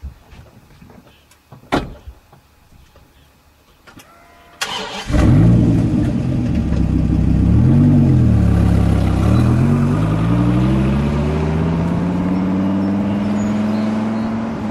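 Car engine cranking and catching about a third of the way in, then running loud and revving: the pitch dips and comes back up once, then climbs steadily as the engine pulls. Before the start there are a few sharp knocks, the loudest about two seconds in.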